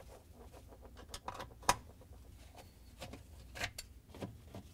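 Scattered light clicks and taps of a Torx screwdriver and loosened screws on a dishwasher's plastic pump cover while the cover screws are taken out, with one sharper click about a second and a half in.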